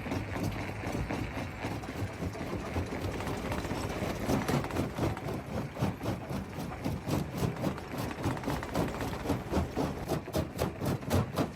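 Rock crusher running: a steady machine drone under a dense, irregular clatter of knocks and rattles, the knocking growing busier in the second half.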